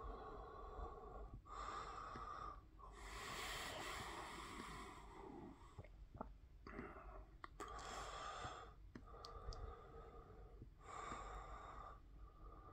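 Quiet, slow breathing close to the microphone: about five breaths, each swelling for a second or two, with a few faint clicks between them.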